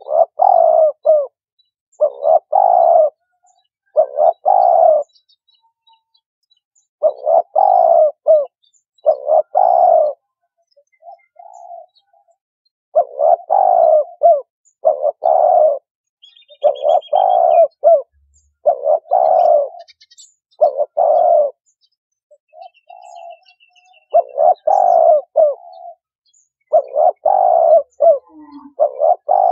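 Spotted dove cooing over and over, in short phrases about every one to two seconds with a few longer pauses: the bird's cooing song, as played by trappers to lure doves. Other birds chirp faintly now and then.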